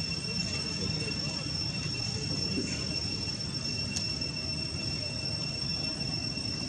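Insect song, a steady unbroken high-pitched drone, over a constant low rumbling background noise.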